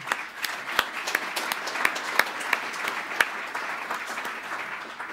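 Audience applauding at the end of a talk, many hands clapping at once, dying away near the end.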